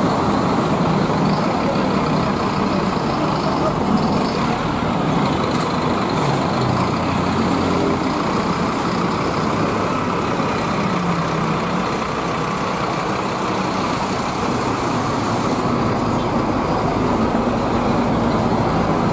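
Scania K310iB coach's rear-mounted diesel engine running steadily at low speed as the bus creeps past at close range.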